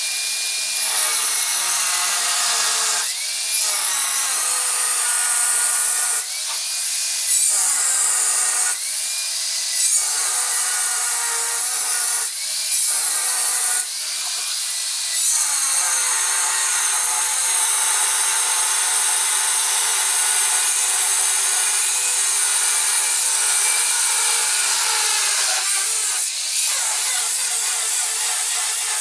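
Angle grinder with a cutting disc cutting through floor screed at a tile edge. The motor whine dips and recovers several times as the disc bites during the first half, then runs steadily under load.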